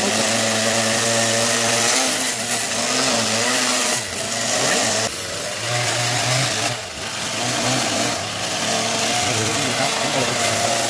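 Petrol chainsaw running and cutting into a wooden log, its engine pitch rising and falling as it revs through the cuts, with a couple of abrupt jumps in the sound.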